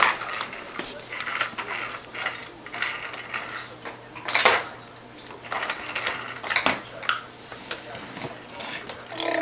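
Chunky plastic toy train cars clattering and knocking against each other and the laminate floor as they are handled, with a couple of louder knocks around the middle.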